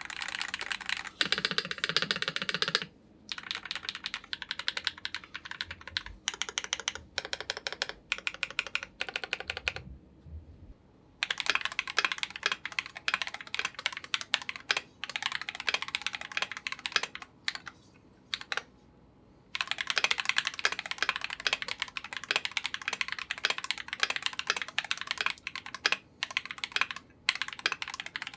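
Continuous fast typing on a KBD67 Lite mechanical keyboard with lubed Glorious Panda tactile switches and Akko clear keycaps, a rapid stream of key clacks with brief pauses, the longest about ten seconds in.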